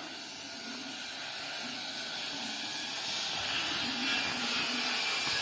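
A steady hiss of noise that slowly grows louder, with a faint low murmur beneath it.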